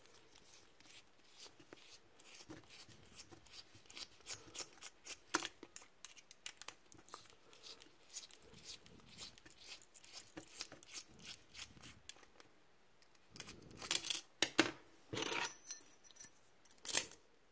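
Medeco M3 lock cylinder being handled with its key and tools to start taking it apart: a long run of small metallic clicks and scrapes, then a few louder clatters in the last few seconds.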